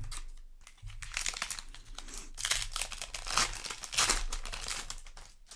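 Foil Magic: The Gathering booster pack wrapper crinkling and crumpling as it is handled, in a dense run of crackles.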